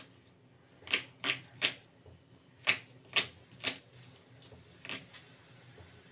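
Kitchen knife chopping onion, the blade knocking sharply on the hard surface beneath. There are two quick runs of three strikes and a last one near the end.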